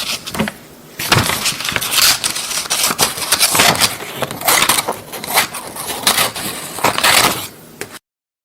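Scissors cutting paper in a run of repeated snips: a short burst at the start, a brief pause, then steady cutting that stops abruptly near the end.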